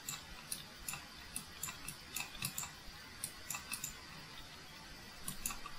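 Faint, irregular computer mouse button clicks, a few per second, as the button is pressed and released for each pen stroke.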